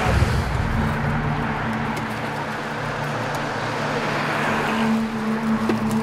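Motor vehicle engine running steadily with a low hum, joined by the rush of a vehicle passing on the road that swells about four to five seconds in.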